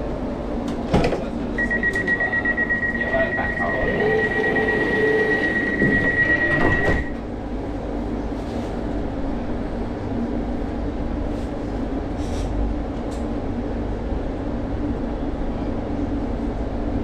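Door-closing warning beeps on a London Overground Class 710 electric train: a rapid, even high beeping for about five seconds, ending as the sliding doors shut about seven seconds in. After that the train's steady low hum.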